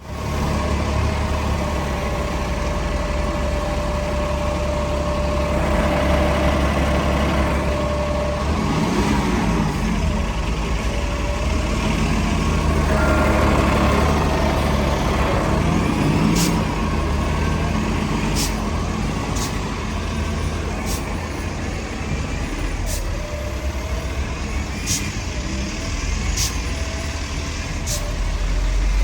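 Heavy diesel bus engine running in traffic, with a steady low rumble and engine notes that rise and fall near the middle. In the second half there is a series of irregular sharp clicks.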